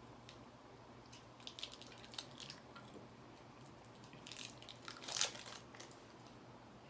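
Plastic candy packaging crinkling and being torn open by hand, in scattered crackles with the loudest rip about five seconds in.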